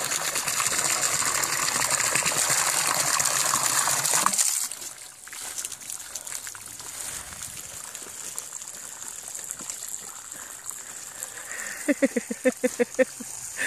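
Water spraying hard from a garden hose spray nozzle, a steady hiss that falls away sharply about four seconds in, leaving a fainter trickle of water.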